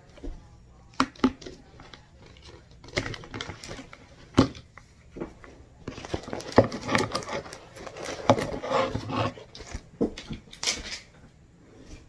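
Handling noise as a stitched project is taken out of an embroidery hoop: a few sharp clicks and knocks, then a longer stretch of rustling with more clicks from about halfway in.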